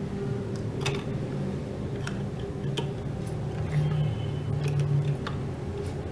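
A few light clicks and taps of hands handling fabric strips and the metal plate of a sewing machine, over a steady low hum.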